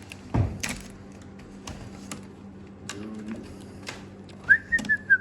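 Scattered clicks and knocks of handling over a steady low hum, then a short whistled note near the end that wavers slightly and drops in pitch as it stops.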